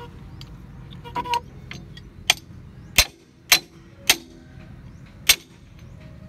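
Hard objects knocking or clicking together as they are handled: a brief ringing clang about a second in, then five sharp knocks spaced irregularly over the next three seconds.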